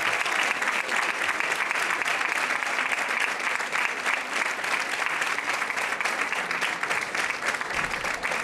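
Audience applauding, a dense crackle of many hands clapping at once that eases off slightly near the end.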